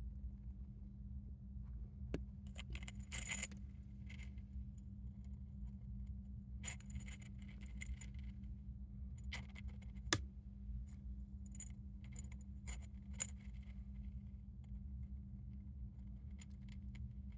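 Hamster drinking from a water bottle: bursts of light metallic clicking and ticking as it licks at the bottle's metal spout, in several runs with pauses between, over a steady low hum.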